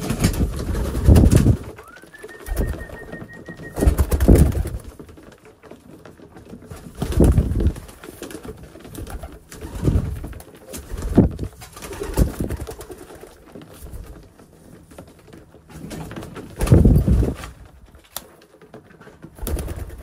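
Homing pigeons cooing, low coos coming every few seconds, some right beside the microphone, with brief wing flutters among them.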